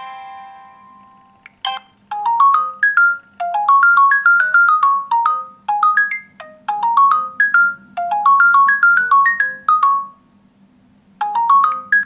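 LG Q6 built-in ringtone preview from the phone's speaker: a tune of short, bright notes in quick rising runs. It starts about two seconds in, after the previous tone dies away. It stops near ten seconds and starts over from the beginning just before the end.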